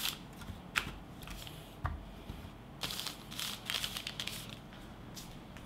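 Plastic packets of spare drone propellers crinkling and rustling as hands lay them out on a cloth, with a few light ticks. The rustling is thickest a little past halfway through.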